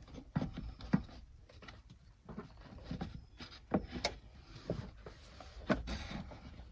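Hard plastic air box and rubber intake duct of a 2008 Ford Focus being handled and pushed into place by hand: scattered light knocks and clicks with plastic rubbing, the sharpest knock about a second in.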